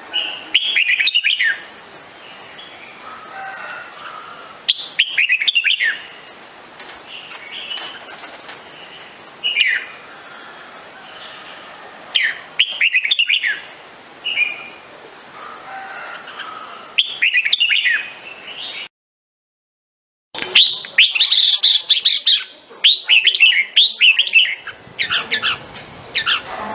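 Red-whiskered bulbul singing: short, bright warbled phrases every three to five seconds. After a brief break about two-thirds of the way in, a faster, busier run of phrases follows.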